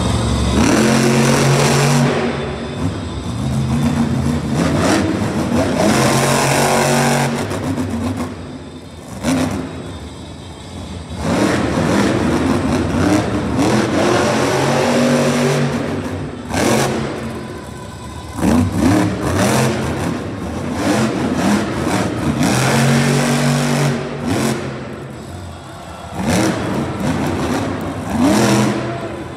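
El Toro Loco monster truck's supercharged V8 engine revving hard over and over, pitch climbing and falling with each burst of throttle as the truck turns on the dirt, with short lulls between runs.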